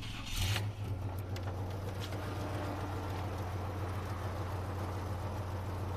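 Pickup truck engine idling steadily, after a short burst of noise about half a second in.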